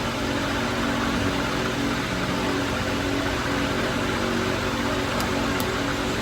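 Steady mechanical hum and hiss, with a couple of faint ticks about five seconds in.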